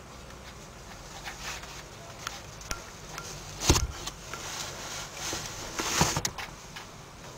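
Two kittens play-fighting on a fabric cushion: scuffling and rustling with small scratchy clicks, and two sharper thumps, the loudest about three and a half seconds in and another about six seconds in.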